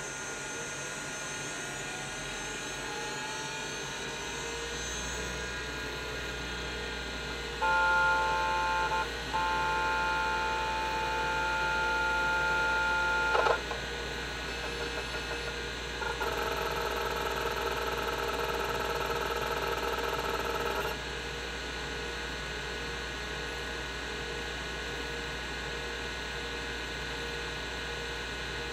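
Seagate ST-277N 5.25-inch SCSI hard drive running with a steady hum, with a rising whine over the first few seconds as it spins up. Twice it gives a louder steady whine lasting several seconds; the first ends in a sharp click.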